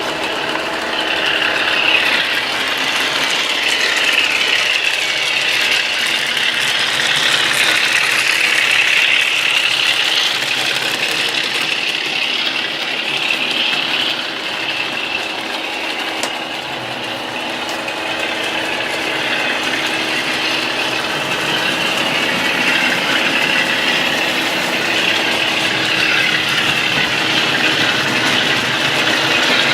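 N-scale model train running on the layout: the small electric motor's whine and the wheels on the track, steadily rising and falling in level as the train moves around.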